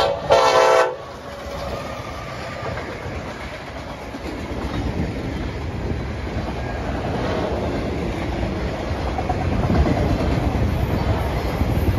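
Diesel freight locomotive's horn sounds a last blast that cuts off about a second in, then the steady rumble of a manifest freight train's cars rolling past the crossing, growing slowly louder.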